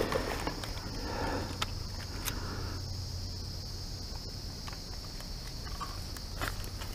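Steady high-pitched insect buzz in the background, with a few faint scattered clicks as pliers work a hook out of a caught fish's mouth.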